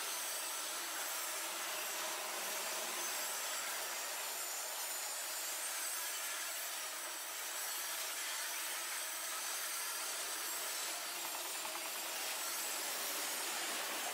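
Double-stack intermodal freight cars rolling past, a steady rush of wheel and rail noise.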